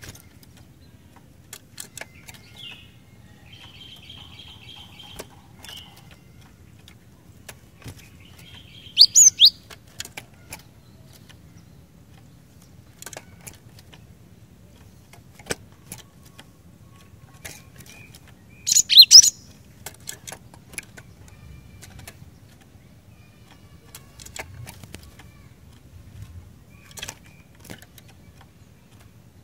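Cinereous tit (glatik batu) calling: a buzzy trill a few seconds in, then two loud, sharp bursts of quick rising notes about ten seconds apart, with scattered sharp clicks between them.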